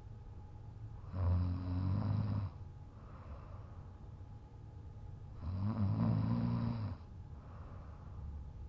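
A man snoring while passed out drunk: two loud, low buzzing snores about four seconds apart, each a little over a second long, with softer breathing between them.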